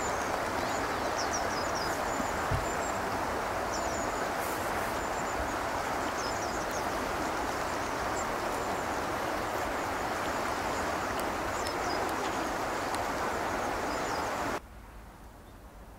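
Steady rush of flowing river water, with scattered short, high bird chirps above it. The sound drops off abruptly near the end.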